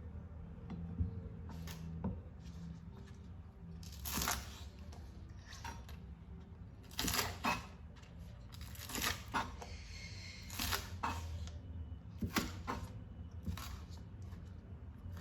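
Kitchen handling noises: irregular short scraping and rustling sounds, about eight of them, over a steady low hum.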